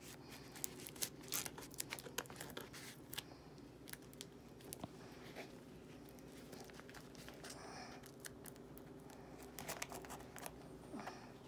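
Newspaper wrapping crinkling and tearing under the hands as it is pulled open from around a potted orchid, in quick crackles that come thickest in the first few seconds and again near the end.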